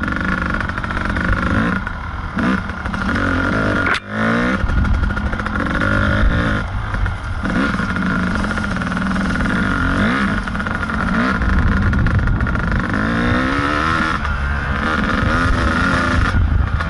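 Kawasaki KDX220 two-stroke dirt bike engine running under load, its pitch rising and falling again and again as the throttle is worked. The sound drops out sharply for a moment about four seconds in.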